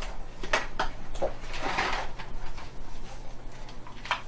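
Hardware handling noises as a SATA SSD is picked up and handled: several sharp small clicks and knocks, with a brief rustle in the middle.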